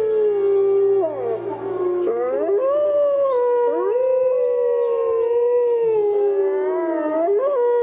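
Wolves howling in chorus: several long howls overlap, each sliding slowly up and down in pitch.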